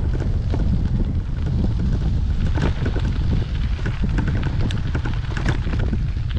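Bicycle tyres rolling over a gravel path, crackling and popping as the stones shift, under a heavy low rumble of wind buffeting the handlebar-mounted microphone.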